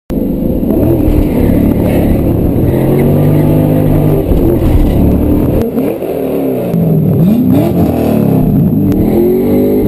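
A 2002 Chevrolet Camaro SS's LS1 V8 running loud, first pulling with rising revs, then revved up and down in several quick blips about six seconds in.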